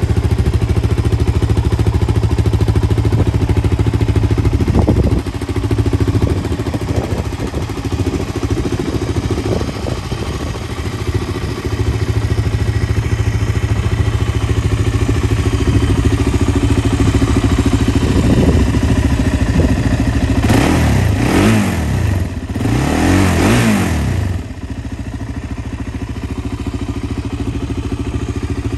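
A 2014 Suzuki LT-Z400 Quadsport ATV's 398 cc single-cylinder four-stroke engine idling steadily, with two quick revs of the throttle, each rising and falling, about two-thirds of the way through.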